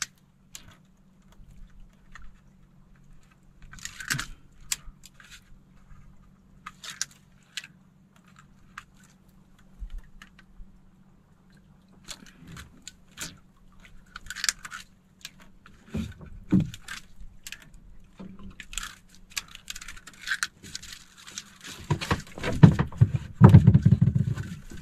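Scattered scrapes, rubs and light clicks of a fishing hand line being handled and paid out from a ring-shaped spool, over a faint steady low hum. Louder low rumbling bursts come near the end.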